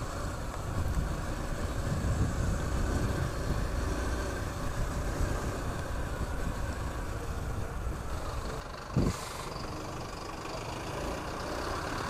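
Motor vehicle engines and road noise while riding in traffic: a steady low rumble, with a short thump about nine seconds in.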